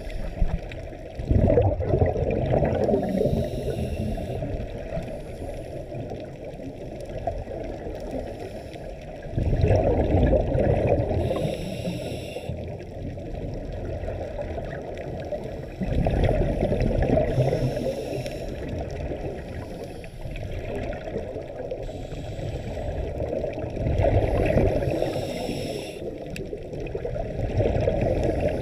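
Underwater sound of scuba divers breathing through their regulators: a burst of exhaled bubbles about every seven or eight seconds, with a fainter hiss in between.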